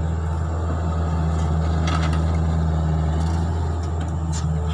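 2014 Hitachi Zaxis 48U mini excavator's diesel engine running steadily under working load as the boom lifts a bucket of soil, with a couple of short knocks, one about two seconds in and one near the end.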